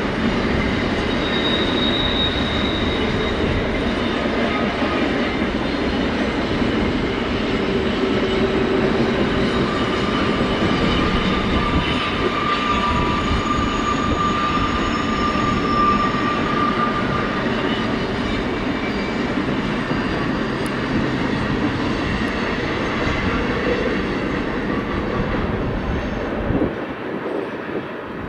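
Loaded ballast cars of a freight train rolling past on the rails: a steady rumble of steel wheels with a few faint wheel squeals. The rumble drops off near the end.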